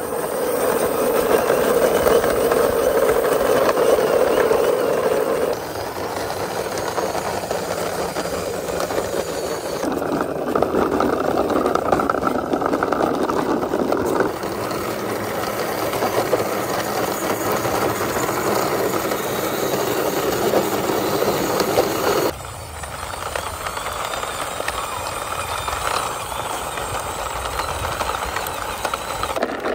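Plastic toy cars pushed by hand along rough concrete, their wheels rolling with a steady noisy rumble and rattle. The sound changes abruptly several times as one toy gives way to the next.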